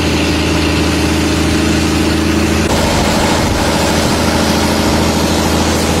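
A ship's engine running steadily: an even, low hum with no change in speed. Its tone shifts slightly about two and a half seconds in.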